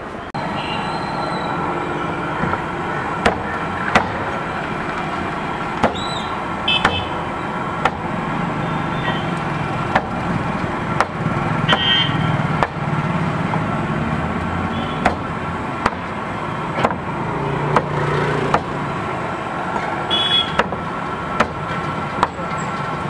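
A knife chopping fried chicken pieces on a cutting board: irregular sharp knocks of the blade hitting the board, roughly one a second, over a steady wash of street traffic noise.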